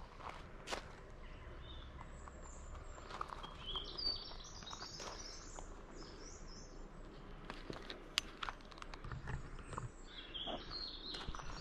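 Songbirds twittering in short high-pitched phrases, about three to five seconds in and again near the end, over scattered crunching footsteps on a gravel path.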